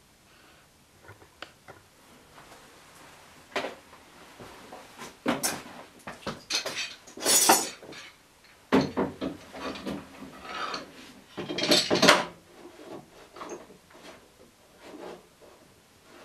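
Metal clamps and wooden parts being handled in a workshop: irregular clattering, knocking and scraping, loudest in two busy stretches in the middle.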